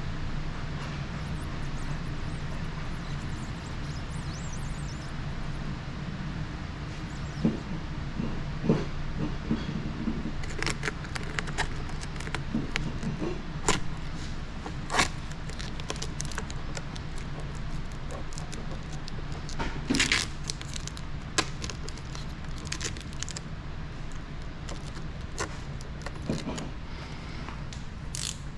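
Scattered sharp clicks and taps of a tucking tool and clear paint protection film being handled around a car's side mirror, over a steady low hum.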